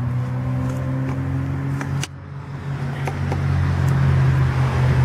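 A loud, steady low motor hum with even overtones, like an engine or compressor running. A few sharp clicks from the camera being handled sit on top of it, and the sound dips briefly about two seconds in.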